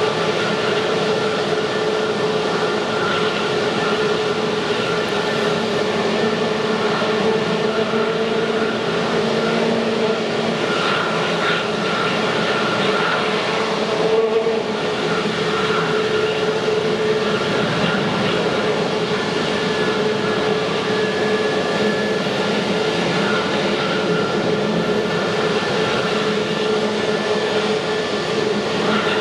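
Airbus A321 airliner's turbofan engines running at low thrust as it taxis slowly: a steady drone with a held whine over it.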